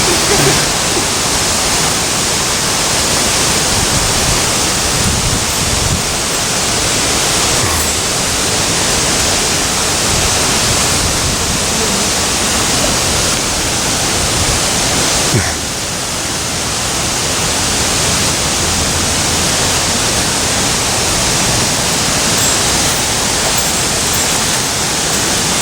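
Loud, steady rush of a mountain stream's flowing water, dipping briefly just past the middle.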